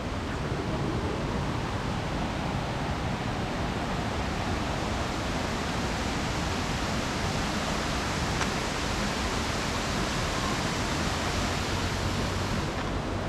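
Steady, even rushing noise with no distinct events, like wind or running water.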